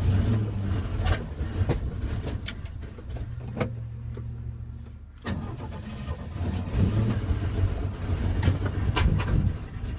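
Chevrolet C10 pickup truck's engine running unevenly, dropping back about four seconds in and picking up again a second later, with scattered sharp knocks and clunks over it.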